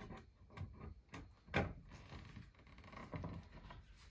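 A few light knocks and taps, the loudest about a second and a half in, as a wooden sign is held and shifted against a wood-panelled wall.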